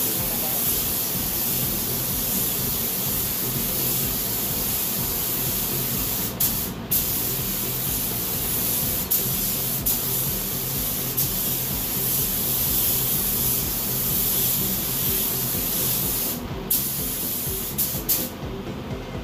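Compressed-air paint spray gun spraying a steady hiss of paint through a non-skid mesh mat used as a stencil for a carbon-fiber print. The hiss stops briefly about six seconds in and a few times near the end as the trigger is let off.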